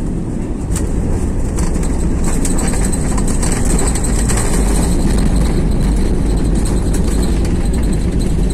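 Airliner cabin noise during the landing rollout, heard from inside the cabin: a loud, steady low rumble of the wheels on the runway and the jet engines, with light rattles.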